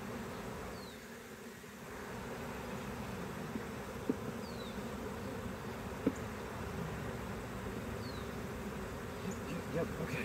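Honeybees buzzing in a steady hum, with two light clicks about two seconds apart midway through.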